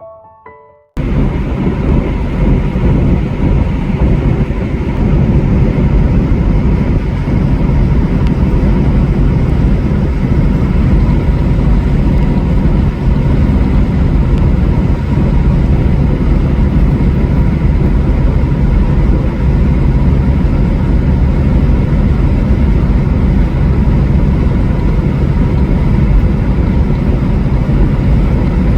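Steady driving noise from a vehicle on the road: a low engine hum under loud road and wind noise, cutting in suddenly about a second in after music fades out.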